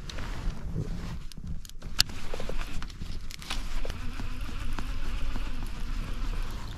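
Handling noise from a baitcasting rod and reel worked in gloved hands, with a few sharp clicks scattered through and a steady low rumble that grows stronger about halfway in.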